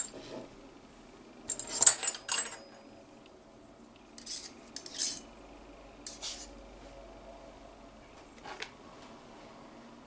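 Aluminium frame beams of a Makeblock mBot Ranger kit clinking and clattering against each other as they are handled. The sound comes in short bursts: the loudest about two seconds in, more around four to six seconds in, and a lighter clink later on.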